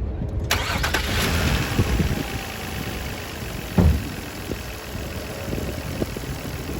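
2004 Nissan Maxima's 3.5-litre V6 idling rough, running lean on both banks from a vacuum leak. An aerosol spray starts hissing about half a second in, and a single thump sounds near the middle.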